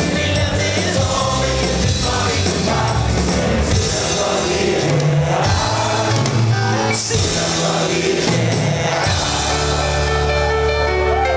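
Live rock band playing, with a singer, under loud amplified concert sound. Near the end the band settles into a long held chord.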